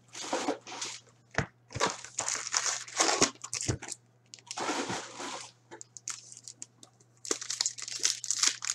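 Foil wrappers of 2018-19 Upper Deck Artifacts hockey card packs crinkling and tearing in irregular bursts as the packs are handled and ripped open, with a couple of sharp knocks of packs set down on the table.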